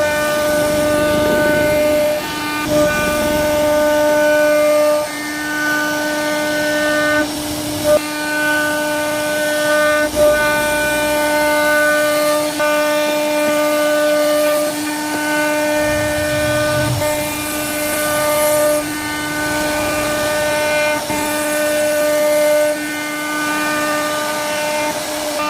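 CNC router spindle running at a steady high speed, giving a constant pitched whine with rich overtones, while the bit cuts the wood with intermittent rougher noise underneath.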